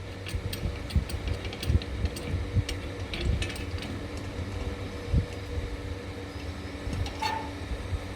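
A clamp being tightened to hold a metal connector against a metal beam: scattered light clicks and knocks, most of them in the first few seconds, over a steady fan hum.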